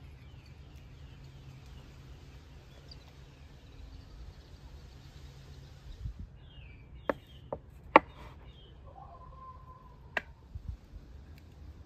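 A metal ladle clinks sharply against an enamel pot and clay bowls about four times in the second half as aşure is spooned out. Birds chirp in quick runs of notes in the background.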